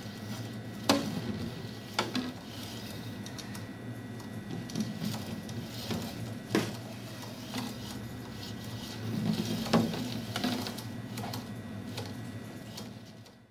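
A small robotic goalkeeper's motors whirring and humming as the arm moves back and forth, with a few sharp knocks of a rolled ball striking the wooden board and its walls; the loudest knocks come about a second in and again near the end.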